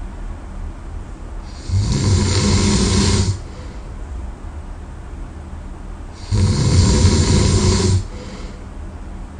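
A sleeping person snoring heavily: two loud snores about four and a half seconds apart, each a low fluttering rasp lasting about a second and a half, with quieter breathing between them.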